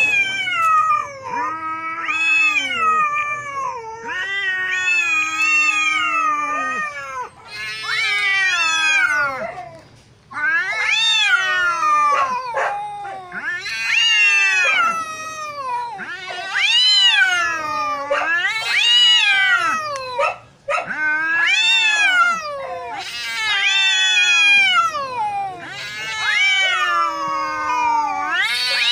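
Domestic cats caterwauling at each other in a territorial standoff before a fight: long, wavering yowls that rise and fall in pitch, one after another with only a few brief pauses.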